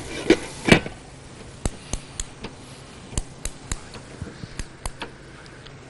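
A cooking utensil clicking and tapping against a pan of frying biryani filling as it is stirred: about a dozen short, sharp, irregular clicks, the loudest two in the first second.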